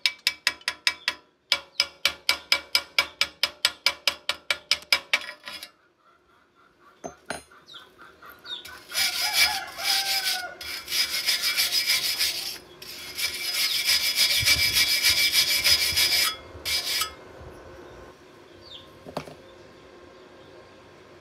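Hand tool tapping slag off a fresh stick-weld bead on steel, quick ringing metal strikes about five a second for the first five seconds. After a pause, a steel wire brush scrubs the weld in two long spells of hard scraping, ending with a short stroke.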